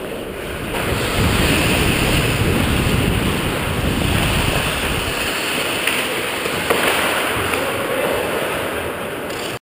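Wind rushing over a GoPro microphone worn by a skating ice hockey player, with the scrape of skates on the ice. It gets louder about a second in, and there are a couple of sharp knocks about two-thirds of the way through. The sound cuts off abruptly just before the end.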